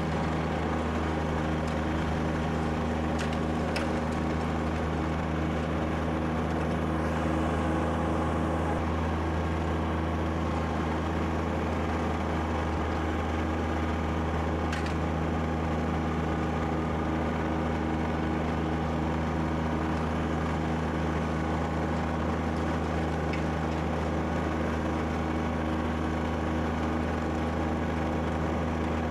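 Kubota BX2680 sub-compact tractor's three-cylinder diesel engine running steadily at a constant speed while it drives the rear-mounted snowblower throwing snow.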